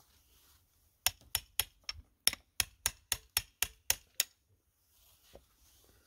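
A claw hammer tapping a wood chisel down into a wooden peg: about a dozen sharp, even taps, roughly four a second, starting about a second in and stopping a little after the fourth second.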